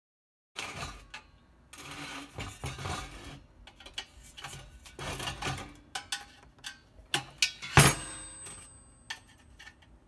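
Screwdriver and metal parts of a patio heater's housing clinking, scraping and rattling irregularly as its screws are removed, with one loud metallic clank a little before eight seconds in.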